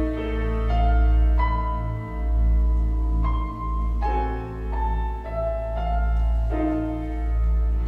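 Live contemporary chamber music for cello, piano and electronics: a slow line of held notes that changes about once a second, over a deep low drone that swells and dips.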